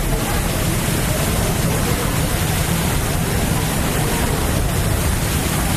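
Steady city street noise: a constant low traffic rumble under an even hiss, with no single event standing out.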